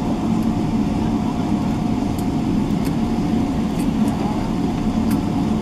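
Steady cabin noise inside a Boeing 777-300ER taxiing at low speed: a low rumble and hum from its GE90 engines at idle, with a constant whine.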